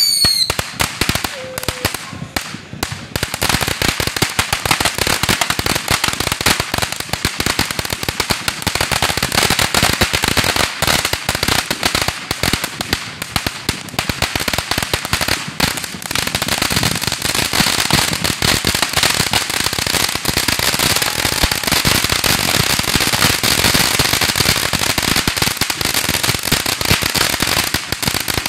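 Ground fountain firework spraying sparks with a dense, continuous crackle throughout. A brief falling whistle sounds right at the start.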